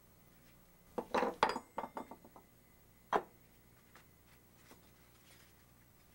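Metal parts of a Coleman propane stove being handled, clinking against each other and knocking on a wooden bench: a quick cluster of clinks about a second in, then one sharp clank about three seconds in.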